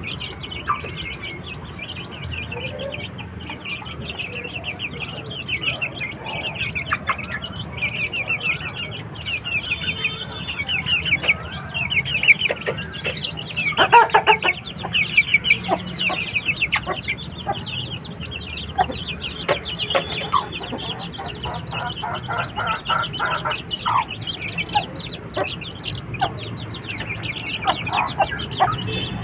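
A flock of chickens clucking and calling over a constant, dense high-pitched chirping. One louder call comes about halfway through.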